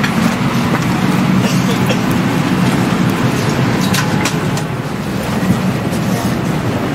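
Steady hum and rush of an airliner cabin's air supply and ventilation at the gate, with a few faint clicks and rustles.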